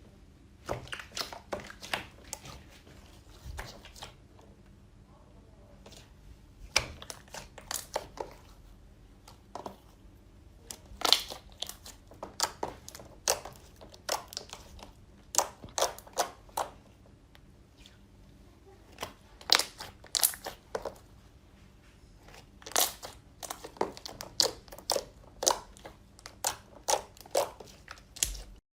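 Slime being squeezed and pressed by hand, giving clusters of sharp crackles and crunches with short pauses between them, typical of crunchy slime.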